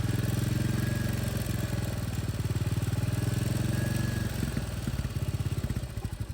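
Royal Enfield Classic 350's single-cylinder engine running at raised revs, then settling back to a slower idle about five seconds in. The owner is demonstrating a tick-tick noise from the engine, which a local mechanic takes for tappet noise: the valve clearances need adjusting.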